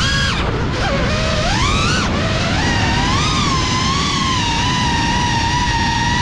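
Motors and ducted propellers of a GEPRC CineLog 35 cinewhoop FPV drone whining close to the onboard camera. Over a low rumble of prop wash, the pitch drops sharply just after the start. It then climbs steeply about two seconds in and wavers with the throttle before settling to a steady whine.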